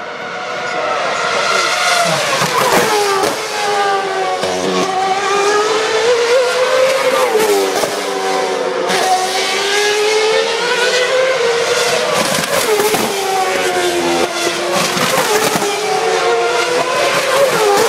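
Several Formula 1 cars' 2.4-litre V8 engines running at high revs as they pass in close succession, their overlapping high-pitched notes sweeping up and down with gear changes and each car going by.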